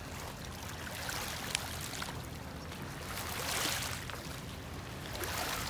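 River water washing and lapping: a steady hiss of moving water that swells a little about three and a half seconds in.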